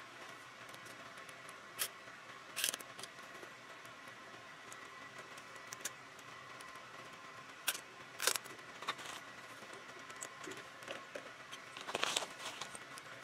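Scattered sharp clicks and short ratcheting rattles of plastic zip ties being fitted and cinched around a bike's chain stay to hold a frame protector, the longest rattle near the end. A faint steady hum underneath.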